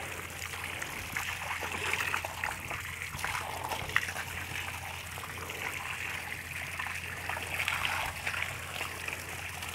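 Bore-well water pouring from a pipe spout into a concrete tank, a steady trickle and splash into the standing water.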